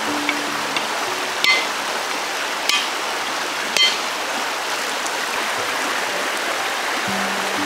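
A machete strikes a husked coconut three times, about a second apart, each hit a sharp crack with a short metallic ring, splitting the shell open. A rocky stream runs steadily behind.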